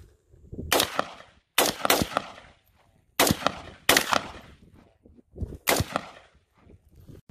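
AR-15 rifle fitted with a 7.62x39 upper firing five single shots at uneven intervals, each crack followed by a short echo.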